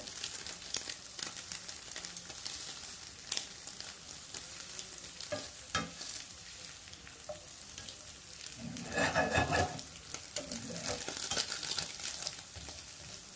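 Scrambled eggs sizzling in a MICHELANGELO 10-inch copper nonstick frying pan with a titanium ceramic interior, a steady frying hiss, while a slotted spatula stirs and turns them with light clicks and scrapes against the pan. The sound is louder for about a second around nine seconds in.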